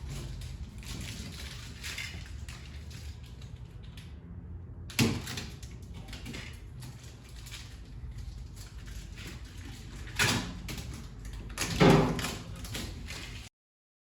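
A few short knocks or bumps over a low, steady room hum: one about five seconds in and two near the end. The sound cuts off abruptly just before the end.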